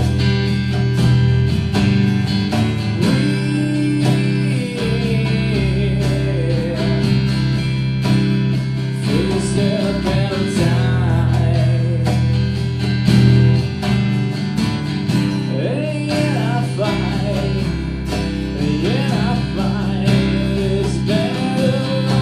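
Live acoustic rock music: acoustic guitars strummed and picked over a steady low bass, with a melody line bending in pitch above them.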